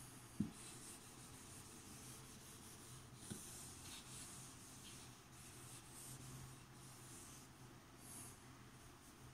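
Faint rubbing strokes of a whiteboard eraser wiping marker off the board, with two light knocks, about half a second in and about three seconds in.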